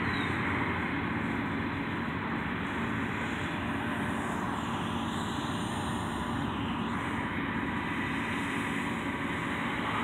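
John Deere S670 combine harvester, a 300-horsepower machine, running steadily while harvesting, its diesel engine and threshing gear a continuous drone with a low hum.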